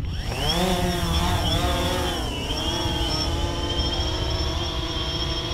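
Quadcopter drone's electric motors and propellers spinning up for takeoff. A buzzing whine rises in pitch within the first half second, then holds, wavering up and down as the drone lifts off.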